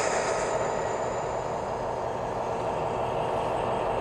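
Diesel locomotive engine sound effects played through a tablet's speaker by the BlueRail Trains app, running steadily.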